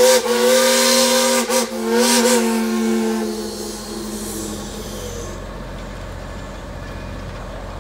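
Steam whistles on a line of passing steam locomotives, blowing a loud held chord with two short breaks and cutting off about three seconds in. After that a quieter low rumble of the locomotives running by remains.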